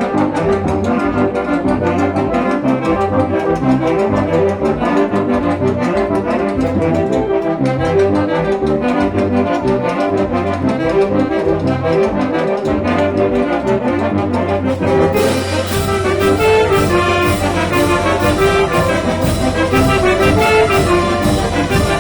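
Mexican wind band (banda filarmónica) playing: trumpets and trombones over a rhythmic low bass line. About fifteen seconds in, sharp percussion strokes, likely cymbals and drums, come in more strongly.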